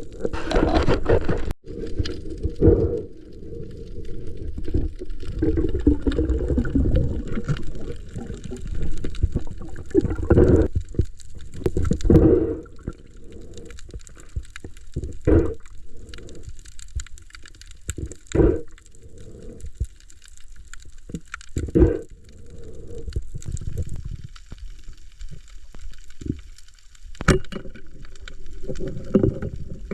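Water sloshing and gurgling, mostly low in pitch, with irregular short knocks.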